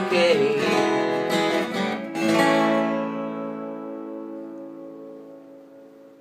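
Acoustic guitar strumming the last few chords, then a final strum about two seconds in that is left to ring out and fades slowly away.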